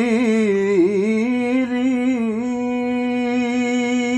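A single voice singing an Urdu devotional naat, holding one long note. It wavers in quick ornaments for about the first two and a half seconds, then holds steady.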